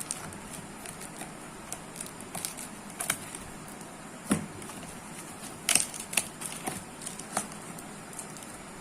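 A product box and its packaging being handled and opened by hand: scattered taps, scrapes and crinkles, with the sharpest clicks about four and six seconds in, over a steady low hiss.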